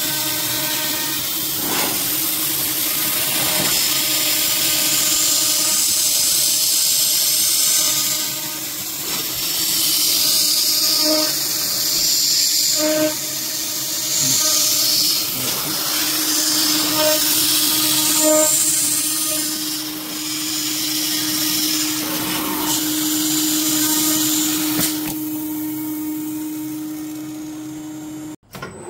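A PrintNC Pro CNC router milling 6061 aluminium with an end mill: a steady spindle whine over the high hiss of the cut. The whine grows stronger about halfway through, and the sound breaks off abruptly just before the end.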